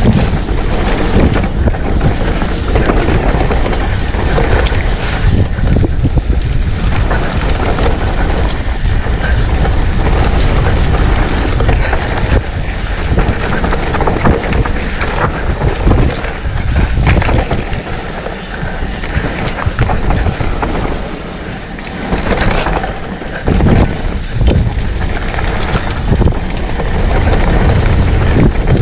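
Wind buffeting the microphone while a mountain bike rolls fast over a dirt trail, its tyres crunching and the bike rattling and knocking over bumps. It eases off for a few seconds a little past the middle, then picks up again.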